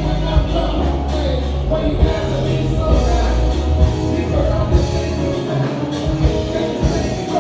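A music track with singing over a strong bass line and a steady beat.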